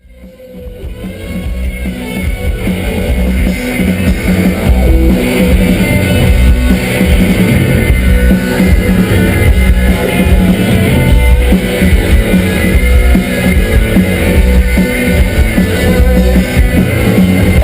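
Loud rock music with guitar and drum kit, fading in over the first two seconds.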